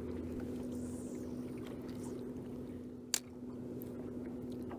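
Steady low hum on a fishing boat, holding one pitch, with one sharp click about three seconds in.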